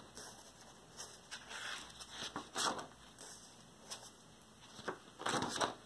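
Paper rustling as pages of a spiral-bound sketchbook are turned and a hand brushes over them: a few soft rustles, the longest near the end.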